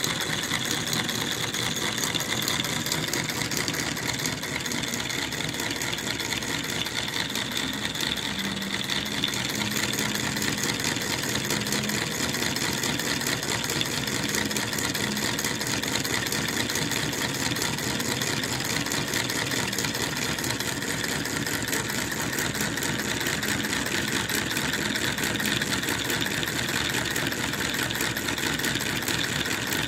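Small model Stirling engine running steadily, its crank and linkages making a fast, even ticking clatter.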